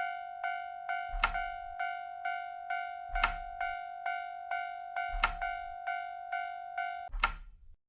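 Japanese railroad crossing warning bell ringing its 'kan-kan', a bright ringing tone about twice a second. A sharp clack with a low thud comes every two seconds. All of it cuts off suddenly near the end.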